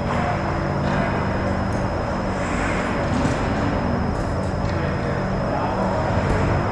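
Ice rink ambience: a steady hum and hiss with a thin high tone running through it, and a few faint knocks and scrapes from skates and sticks in distant play.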